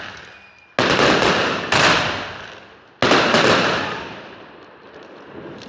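Fireworks exploding: three loud bangs, the second less than a second after the first and the third over a second later, each fading away, with a few smaller cracks after the first and the last.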